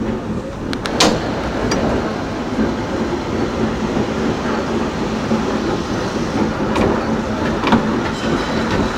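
Vintage tram running along street track, heard from its open front platform: a steady rumble of wheels on rails with a faint hum, broken by a few sharp clicks, the loudest about a second in.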